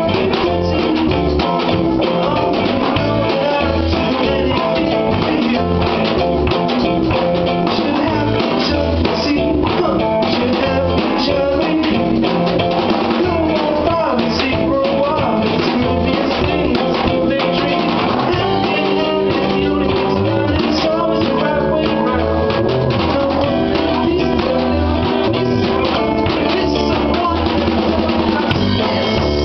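Live band playing, with guitar over a drum kit and a low bass line.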